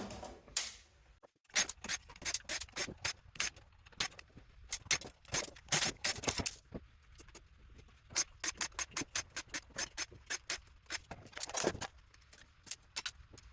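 Hand tools working on the metal parts of a power supply being dismantled for scrap copper: a run of irregular sharp clicks and clinks, several a second at times, with a couple of brief scrapes.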